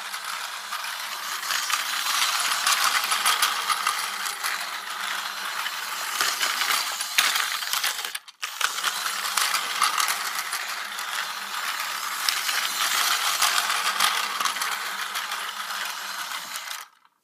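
Plarail Seibu 9000 series toy train running: its small battery motor and gearbox whir with a fine, rapid clicking. The sound drops out briefly about eight seconds in and cuts off suddenly near the end.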